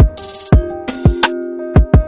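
Background music: an electronic beat with deep kick drums and sharp hits over held notes.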